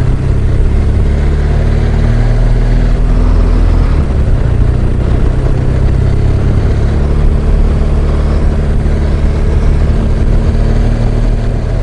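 BMW R1200GS Adventure motorcycle's boxer-twin engine running steadily while riding, a loud continuous rumble mixed with rushing wind and road noise.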